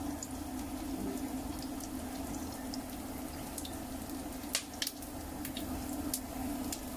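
Sliced garlic and shallot frying in hot oil in a pot, a gentle sizzle with scattered small pops and crackles, over a steady low hum.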